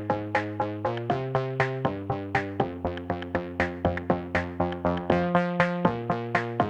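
Background music: electronic synthesizer notes at a quick, even pulse, about four notes a second, with the chord changing every second or so.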